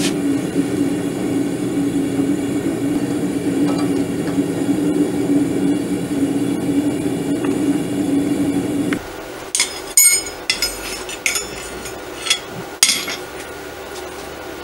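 A gas forge burner roars steadily with a low hum, then stops suddenly about nine seconds in. Forged steel hooks then clink and knock together at uneven intervals as they are laid out on an anvil.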